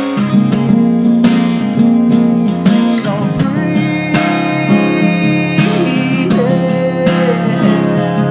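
Acoustic guitar strummed in a steady rhythm with ringing chords, an instrumental break in a live solo song.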